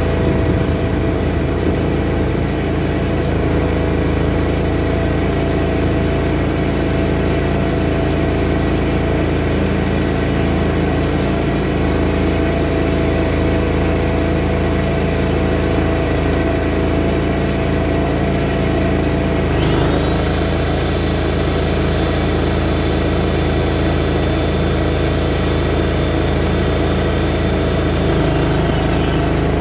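Walk-behind greens mower's small engine running steadily under load. About two-thirds of the way through, a high steady whine joins it and glides away near the end.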